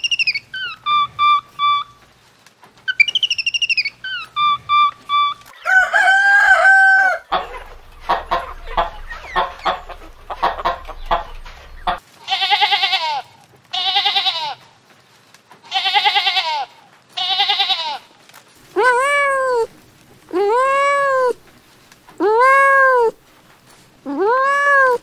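A run of different animals' calls. Two groups of short high calls open it, then a held call and a stretch of scraping noise. After that come four wavering calls about a second long, and near the end five meows from a kitten, each rising and falling in pitch.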